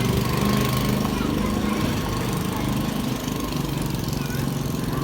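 An engine running steadily, with a thin steady whine above it.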